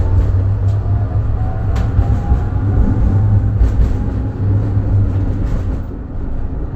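Tatra KT4Dt tram running, with a steady low rumble, a faint whine and a few sharp clicks from the wheels on the track.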